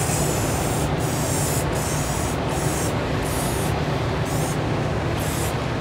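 Rust-Oleum Satin Clear Enamel aerosol can spraying a clear coat onto carved wood in one long, steady hiss. The hiss's highest part fades and returns several times as the can sweeps back and forth.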